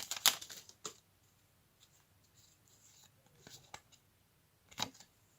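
Light rustling and clicking of a Pokémon booster pack and trading cards being handled: a few soft strokes in the first second, faint taps in the middle and a sharper click near the end.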